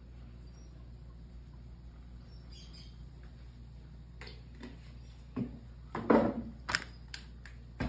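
Low steady hum, then from about four seconds in a run of knocks and clicks as things are handled and set down on a kitchen counter. The loudest is a heavier clatter about six seconds in, followed by a few sharp clicks.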